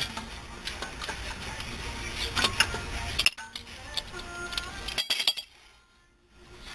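Metal clinks and knocks from a wrench and the rear disc brake caliper and bracket being handled, a scattering of sharp separate clicks that stop about a second before the end.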